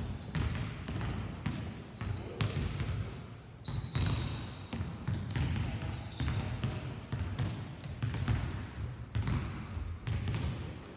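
Several basketballs bouncing and being dribbled on a sports hall floor, an irregular run of thuds, with short high squeaks from sneakers on the court.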